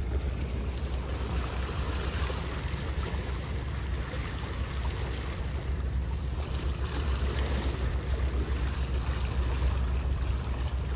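Wind buffeting the microphone in a steady low rumble, over the wash of sea water lapping against shoreline rocks.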